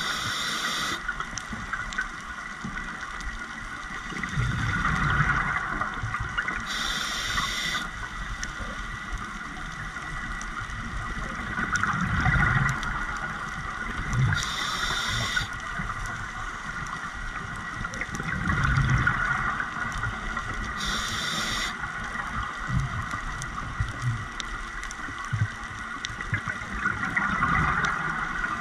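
Scuba diver breathing through a regulator underwater, four breaths in all. Each breath is a short hiss of inhalation, about seven seconds apart, followed a few seconds later by the bubbling gurgle of the exhaled breath.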